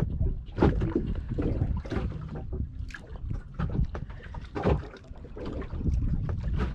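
Wind and water noise on a small fishing boat at sea, a steady low rumble with irregular knocks and clatters.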